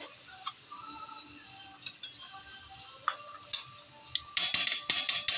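Metal perforated ladle scraping and clinking against a metal wok while stirring fish in coconut milk, with a quick run of sharp clinks near the end. Soft background music runs underneath.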